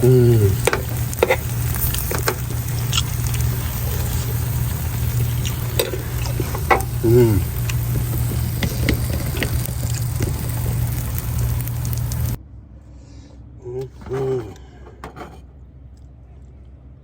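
Salmon frying in a pan: a steady dense sizzle with scattered small clicks and pops over a low hum. It cuts off suddenly about twelve seconds in.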